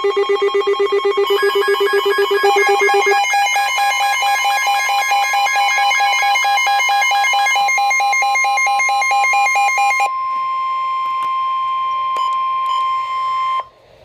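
Weather alert radio sounding a warning: a fast-pulsing electronic beep that jumps up in pitch about three seconds in, joined by the steady 1050 Hz NOAA Weather Radio warning alarm tone. The beeping stops about ten seconds in, leaving the steady tone alone until it cuts off shortly before the end, the sign that a warning message is about to follow.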